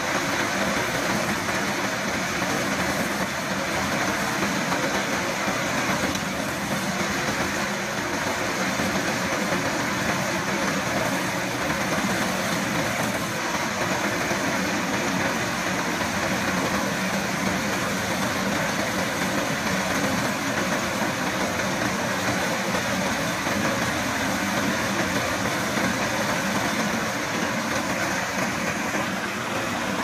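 Case compact track loader's diesel engine running under load, driving a Centerline HS-57 manhole cutter whose toothed ring grinds a circle through the asphalt around a manhole. The result is a dense, even noise without pauses.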